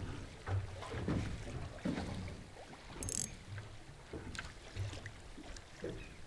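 Wind-driven chop lapping and slapping irregularly against the hull of a small boat lying at anchor, with wind buffeting the microphone. A few faint knocks and a brief high hiss come about three seconds in.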